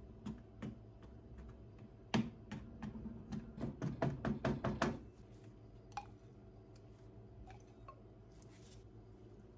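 A fork docking pizza dough, its tines tapping through onto the metal baking tray: a couple of taps at first, then a quick run of knocks, several a second, for about three seconds.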